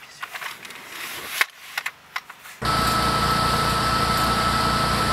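Faint scattered clicks and a sharp knock, then, a little past halfway, an abrupt switch to a fire engine's engine running loudly and steadily, with an even low pulse and a constant high whine.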